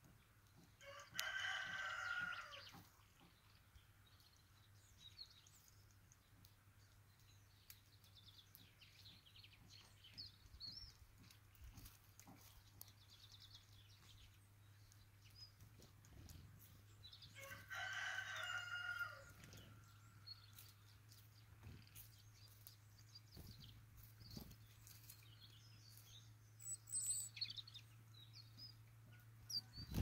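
A rooster crowing twice, about a second in and again about halfway through, each crow lasting about a second and a half. Small birds chirp faintly between the crows.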